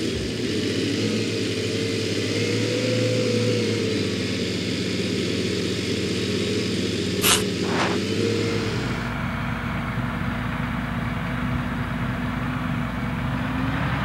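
Massey Ferguson 7715 Dyna VT tractor's six-cylinder diesel engine running steadily as the tractor drives across the field, with two short sharp clicks about halfway through. The sound changes about two-thirds of the way in, becoming duller with more low rumble.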